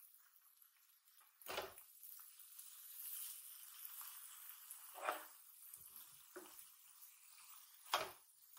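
Okonomiyaki frying on an electric griddle plate, a faint steady sizzle, with metal spatulas scraping and knocking on the plate three times: about a second and a half in, about five seconds in, and loudest near the end as a spatula slides under the cabbage-and-bacon pile.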